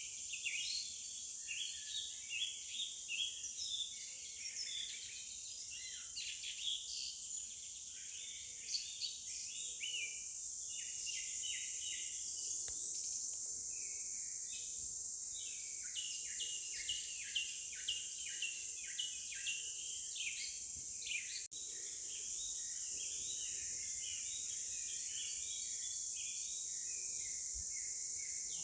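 Forest ambience: many small birds chirping over a steady high-pitched insect drone.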